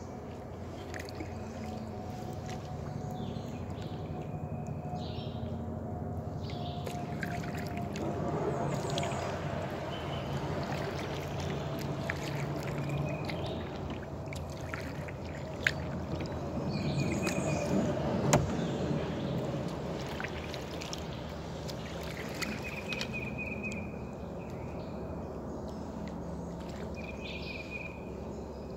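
Kayak paddling through still swamp water: the paddle blades dip and pull with swishing and dripping, swelling twice. There are a couple of sharp knocks in the middle, and birds chirp in short trills in the background.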